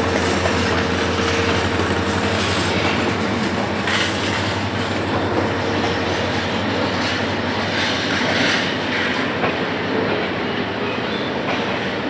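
Diesel-hauled Intercity passenger train pulling out, its coaches rolling past with wheels clattering over the rail joints. The locomotive's engine is a steady low drone that fades as it draws away.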